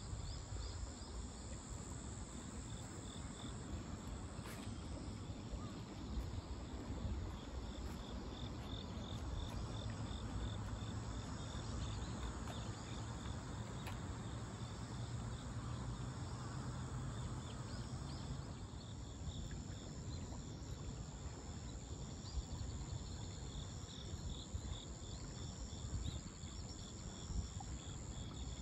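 Crickets and other insects chirping: a regular pulsing chirp and a steady high-pitched trill over a low background rumble. A low hum swells between about 8 and 18 seconds in, then fades.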